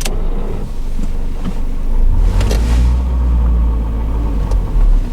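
A 1989 Honda Accord's four-cylinder engine running with the car under way, mixed with road noise; a deep low rumble swells from about two seconds in. A sharp click at the very start.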